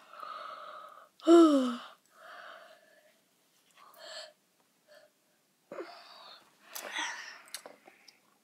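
A person's breathy vocal sounds, with one loud short cry about a second in whose pitch falls.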